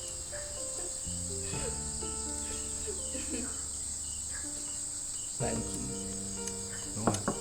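A steady, high-pitched chorus of insects, such as crickets, over soft background music of held notes, with a few sharp clicks near the end.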